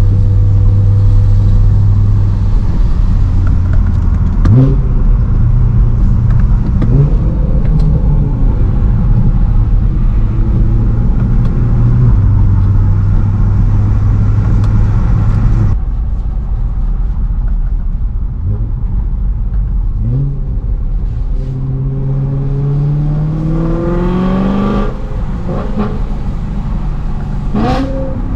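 BMW E92 M3's 4.0-litre V8 engine driving on a wet road. It runs steadily with short quick revs in between, then pulls up through the revs for a few seconds about three-quarters of the way in, with one more sharp rev near the end. A hiss of tyre and road noise runs under the first half and cuts off suddenly about halfway.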